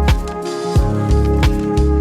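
Background music: an electronic track with a steady drum beat and heavy bass under held synth tones.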